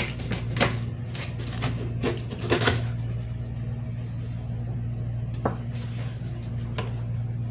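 A steady low hum, with a cluster of sharp clicks and knocks in the first three seconds and one softer knock about five and a half seconds in.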